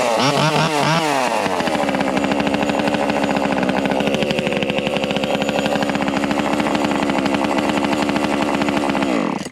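Small gas chainsaw engine (JPNTech 12-inch), just started cold, revved up and down several times in quick succession, then running steadily before cutting out abruptly near the end. The engine is still cold.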